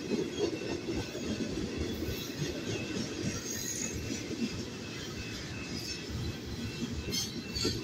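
Freight cars of a Kansas City Southern manifest train rolling past: a steady rumble of steel wheels on rail, with a faint high squeal from the wheels.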